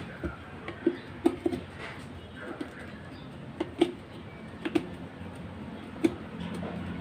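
Irregular light clicks and knocks, about a dozen, from a screwdriver working on the water heater's casing and the casing being handled while its cover screws are taken out.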